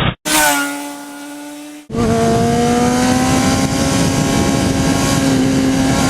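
Sportbike engine at high revs. First a short pass with the pitch falling away, then, after an abrupt cut about two seconds in, a sustained high-rev run whose pitch climbs slowly.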